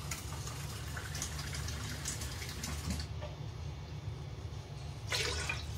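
Faint running water, which stops about three seconds in, over a low steady hum. The water is being measured out by the cupful for cooking rice congee.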